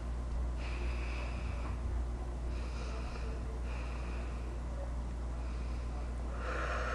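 A boy breathing heavily in and out through his nose: about five long, noisy breaths roughly a second apart. A steady low hum runs under them.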